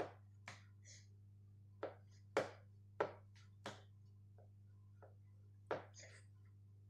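About nine short, sharp clicks or taps at irregular intervals, over a faint steady low hum.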